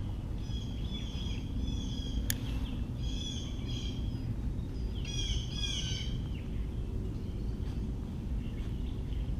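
Songbirds calling in short repeated chirping phrases over a steady low rumble of outdoor background noise, with a single sharp click a little over two seconds in; the birdsong fades out about two thirds of the way through.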